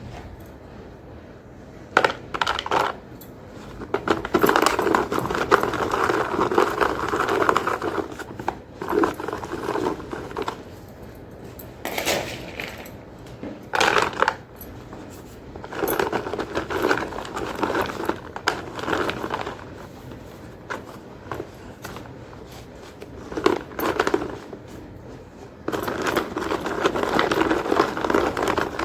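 Blocks of gym chalk being crunched and crumbled, in stretches of dense gritty crunching a few seconds long, broken by sharp single cracks as pieces snap.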